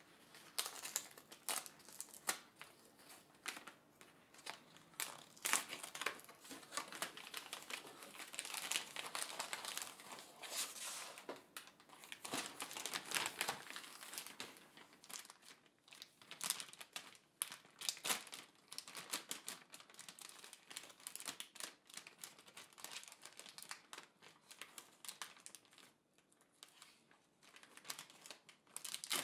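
Paper being unwrapped by hand, first the newspaper wrapping and then thin white paper being pulled open. It crinkles and rustles in a long run of irregular crackles, with a brief lull near the end.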